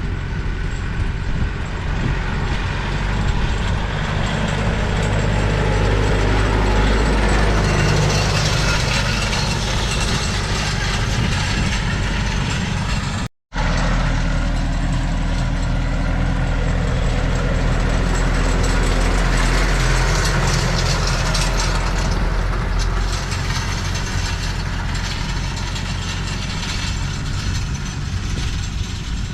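Landini tractor's diesel engine running steadily while pulling a grass harrow across a wet field. The sound cuts out completely for a moment about thirteen seconds in.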